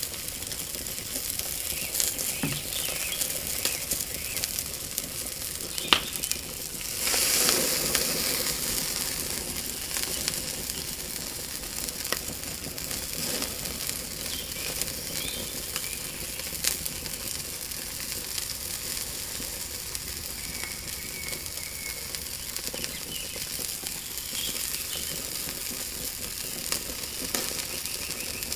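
Tomahawk steak sizzling over hot charcoal on a cast-iron grill, a steady hiss with scattered crackles and pops of dripping fat. A sharp crack comes about six seconds in, followed by a louder rush of sizzling for a couple of seconds.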